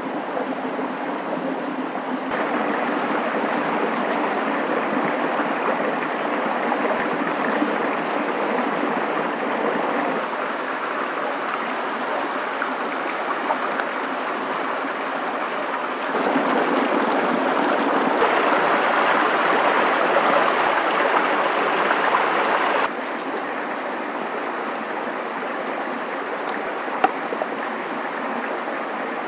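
Steady rushing outdoor ambience with no distinct events; its level and tone step abruptly up and down several times, and a single sharp click sounds near the end.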